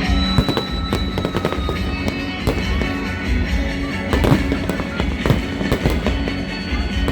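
Fireworks bursting and crackling in quick, irregular succession, with loud music playing at the same time.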